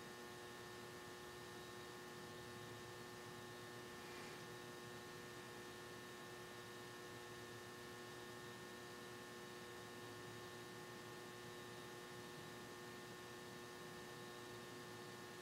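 Near silence: a faint, steady electrical hum made of several fixed tones.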